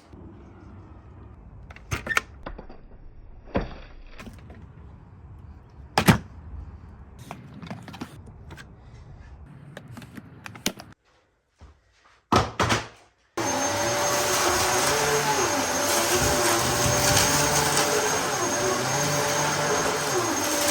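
Several scattered knocks and clicks of the machine being handled, then about two-thirds of the way through a 2004 Dyson DC14 Basic upright vacuum cleaner switches on suddenly and runs steadily with a high whine.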